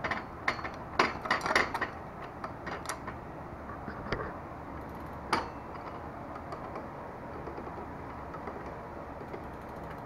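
Mountain bike drivetrain turned by hand: the chain clatters over the rear cassette and derailleur with a run of sharp clicks and clunks in the first few seconds and two more a little later. The rear wheel then spins on quietly with faint light ticking.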